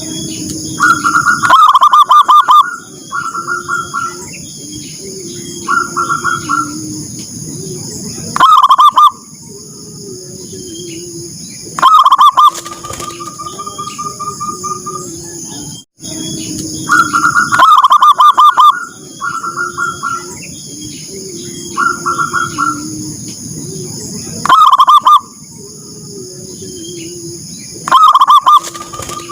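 Zebra doves (perkutut) cooing in a steady cycle: loud stuttering phrases alternate with softer low coos. The same sequence of calls repeats about every 16 seconds, over a steady high-pitched buzz.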